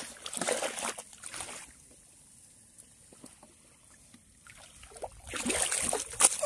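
Water splashing and sloshing in two bursts, one at the start and a longer one from about five seconds in, with quieter stretches between.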